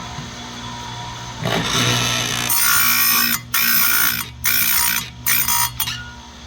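Chainsaw chain grinder running, its wheel grinding the cutters of a saw chain. The grinding comes in several passes of about a second each, with brief breaks between, over a steady motor hum.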